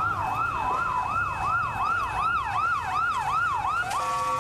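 Police vehicle siren sounding a fast yelp, its pitch sweeping up and down about two and a half times a second, then switching to a steady horn-like tone near the end.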